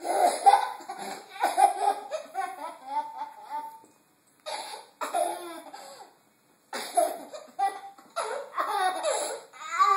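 Toddler laughing hard in repeated bursts of giggles and belly laughs, with short breaks about four and six seconds in; his hiccups are what set him off.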